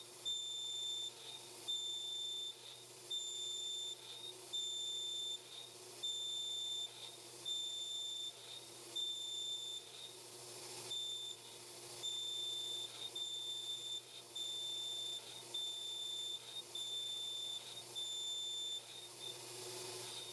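A run of short, high-pitched electronic beeps, about one and a half a second, with a few brief breaks, over a faint steady hum.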